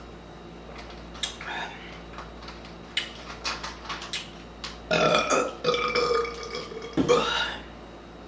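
A person burping loudly after drinking carbonated sparkling water. A few short clicks come first, then three burps from about five seconds in, the middle one long and held on one pitch.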